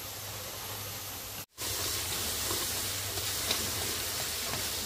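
Food frying in a pan, a steady sizzling hiss. It drops out for a moment about a second and a half in, then comes back a little louder.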